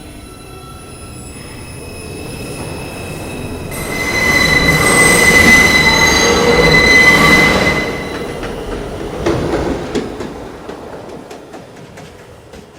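R142 subway train pulling out of the station, its sound building for a few seconds before the wheels squeal loudly with a steady high ring. The squeal dies away after a few seconds and the train fades off with a series of clicks as its wheels run over the rail joints.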